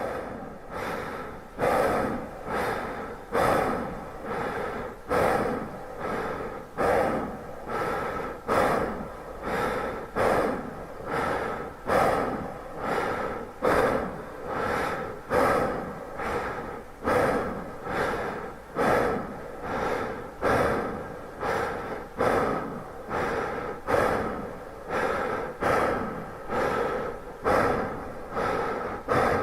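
A person breathing hard in repeated gasping breaths, roughly one a second, each starting sharply and fading.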